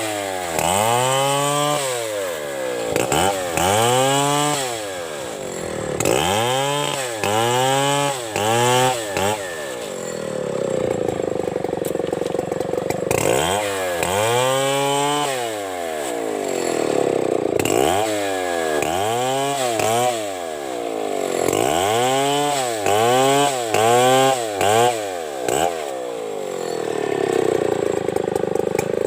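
Two-stroke chainsaw revved in repeated short bursts, each rising and falling in pitch, in runs of several, with steadier running between.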